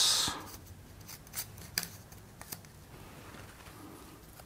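Faint handling of tripod leg twist-lock parts: a handful of small sharp clicks and light rubbing as the sleeves and inner piece are fitted back into the leg's clamping knuckle.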